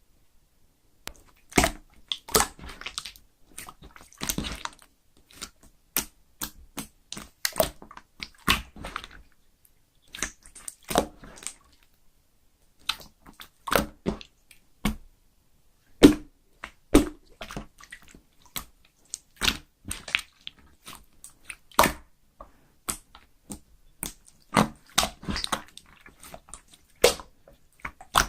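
Clear slime being squeezed and pressed by hand, giving a run of irregular sticky pops and clicks with wet squelches between them.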